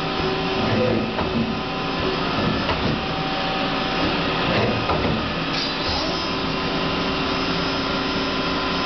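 Hardinge Quest 10/65SP CNC turning center running a program: a steady mechanical whir with several steady whining tones held throughout.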